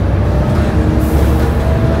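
Volvo B7TL double-decker bus under way, heard from the upper deck: a steady low rumble from its six-cylinder diesel and drivetrain, with thin whines that shift in pitch and a brief high hiss about halfway through.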